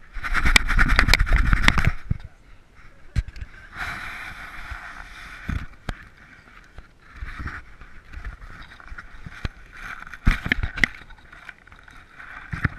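Handling noise on a dog-mounted GoPro HERO3: rustling, rubbing and knocking as the camera jostles against fur, strap and leash while the dog moves about. The loudest stretch of scraping and clicks comes in the first two seconds, then shorter bursts and clicks follow.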